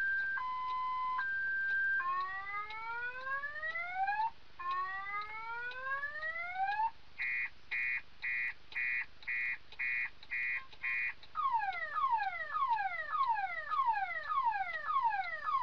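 Electronic car alarm siren cycling through its tones. It starts with a two-tone warble, then gives two slow rising whoops and a quick string of about eight beeps. It ends with fast falling sweeps, about two a second.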